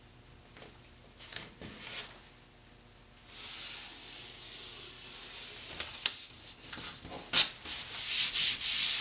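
Blue painter's tape being pulled off its roll and rubbed down onto the wall: a steady rasping hiss from about three seconds in, louder near the end, with two sharp clicks along the way.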